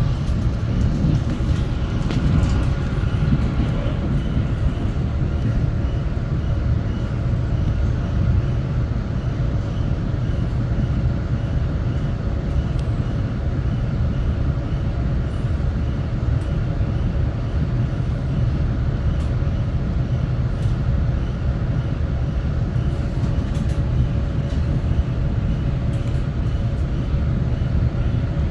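Steady low rumble of a train, with a faint steady hum over it.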